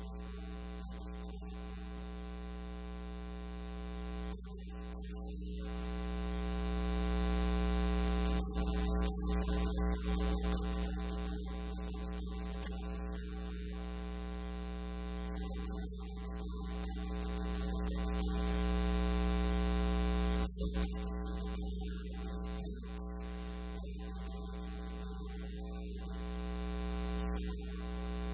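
Loud, steady electrical mains hum with a stack of overtones, swelling slightly in level now and then.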